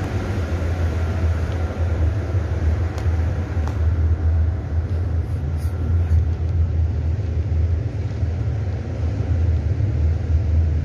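Wind buffeting the phone's microphone: a steady, uneven low rumble, with a couple of faint clicks a few seconds in.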